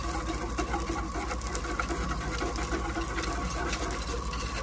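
Propane camp stove burner running: a steady hum with a fast, even low pulse and a constant tone.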